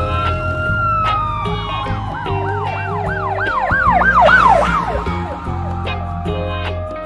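Police siren sounding a slow rising-and-falling wail, then switching to a fast yelp about three seconds in, over background music with a steady beat.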